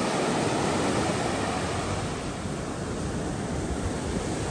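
Steady rushing noise of wind and sea waves, with wind buffeting the microphone.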